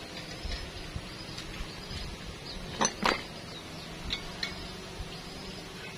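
Two sharp knocks close together about three seconds in, then a couple of lighter clicks, over faint bird chirps.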